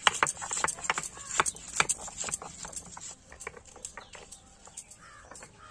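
Garlic cloves being crushed with a stone roller on a flat grinding stone (sil-batta): irregular knocks and crunches of stone on stone. They stop about three seconds in, leaving it much quieter.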